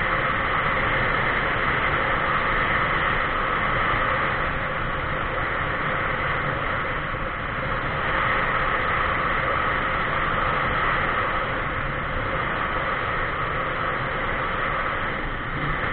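Steady rush of wind and road noise from a vehicle travelling at speed along a paved highway, with a faint steady hum underneath.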